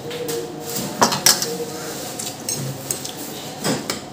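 Forks and spoons clinking and scraping against ceramic noodle bowls as two people eat, with a few sharper clinks about a second in and again near the end.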